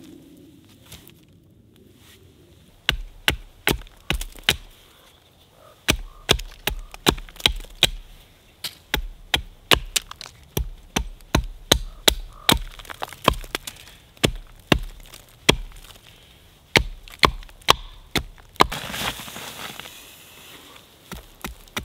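Wood being chopped: sharp, quick strikes, about three a second, in runs of several with short pauses between.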